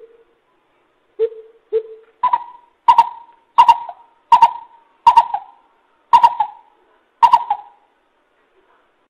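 Coucal calling in deep, owl-like hoots: two low hoots, then a run of about seven louder, higher hoots, evenly spaced.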